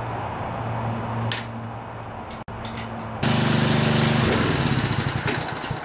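Honda HRC216 lawnmower engine running steadily at a low, even speed, with a few light metallic clicks in the first couple of seconds. After a brief cut about two and a half seconds in, the engine is heard again, louder. The governor adjustment has left it running far too slowly.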